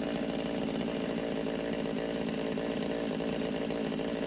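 Stihl MS200T two-stroke chainsaw engine idling steadily, a bit fast, running smoothly on a newly fitted replacement carburetor after it used to bog.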